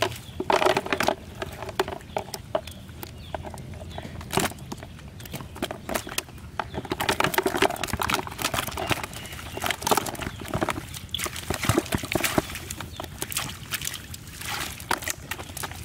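Freshly caught fish flapping and slapping against a red plastic basin while wet cast-net mesh is handled. The knocks and slaps come in irregular bursts, thickest about half a second in, around four seconds, and between seven and thirteen seconds.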